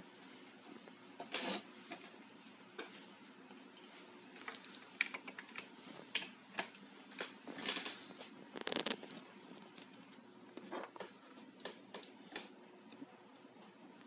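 Irregular small clicks and taps with several louder rustling knocks, from hands handling a glass touch-switch panel and wired receiver board on a table, over a faint steady hum.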